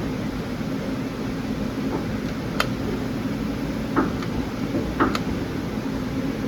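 Steady machine-shop background hum, like running ventilation or machinery, with a few sharp clicks and knocks scattered through it.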